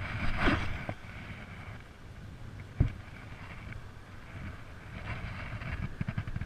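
Spinning rod and reel being cast and reeled in, with wind rumbling on the camera microphone. A whoosh comes about half a second in, and a single sharp click near the middle.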